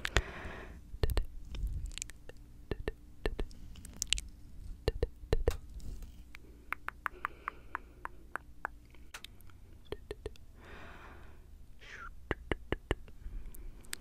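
Tongue clicks and wet mouth sounds made right against a microphone: a string of sharp clicks, coming in a quick run of several a second in the middle, with a couple of short breathy whispered sounds between them.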